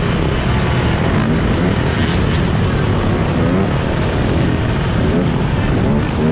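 Dirt bike engines running with a few short revs that rise in pitch, one near the end, over a steady loud rush of noise.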